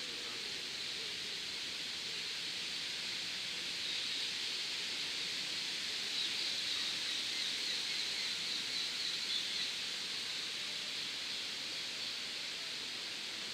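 Steady outdoor background hiss, with faint high-pitched bird calls from about four to ten seconds in.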